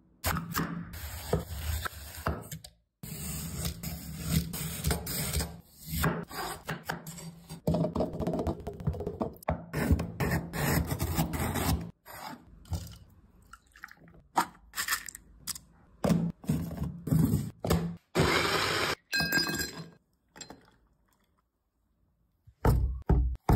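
Knife cutting and scraping yellow melon flesh on a wooden cutting board, with knocks and thunks against the board, in short snippets broken by abrupt cuts to silence. A near-silent stretch of about two seconds comes near the end.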